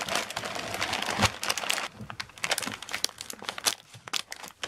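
Plastic bag of dry puppy food crinkling as it is handled and cut open with scissors: an irregular run of crackly rustles and snips.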